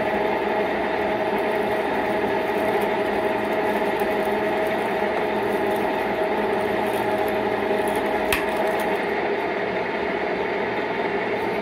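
A 1616 metal lathe running while a large twist drill bores into a spinning metal backplate blank: a steady machine noise with a held whine, and one sharp click about eight seconds in.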